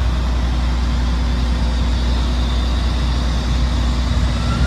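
Deicer truck's engine idling steadily: a loud, even low hum with no change in speed.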